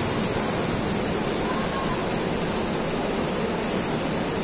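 Water rushing steadily over a weir, an even, unbroken roar of falling water.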